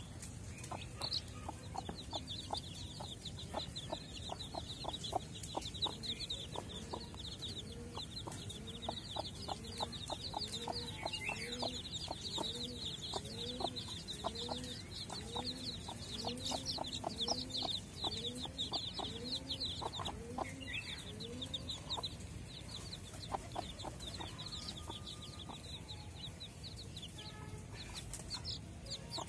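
A native hen's chicks peeping in a steady chorus of high, short cheeps while the hen clucks low and regularly, a little more than once a second. The clucking stops about two-thirds of the way through and the peeping thins out to a few calls near the end.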